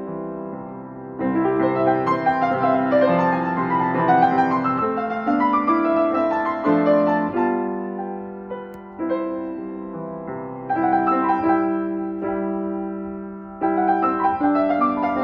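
Steinway & Sons grand piano being played: a slow passage of held chords under a melody, swelling and fading between phrases, with new chords struck again about nine, eleven and fourteen seconds in.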